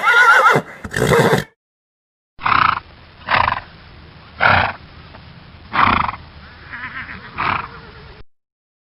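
Horse whinnying with a wavering pitch, stopping abruptly after about a second and a half. After a short gap, a separate recording starts: a horse gives a string of short, loud calls about a second apart.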